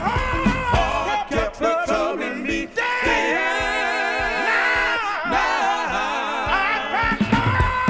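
Black gospel vocal group record playing: several voices singing in harmony over drums and bass, which drop out about three seconds in while the voices hold long chords with heavy vibrato, then come back near the end.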